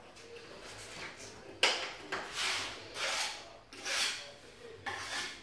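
Hands rubbing and pressing across a large ceramic floor tile in a series of strokes, bedding it into the tile adhesive, with a sharp click about one and a half seconds in.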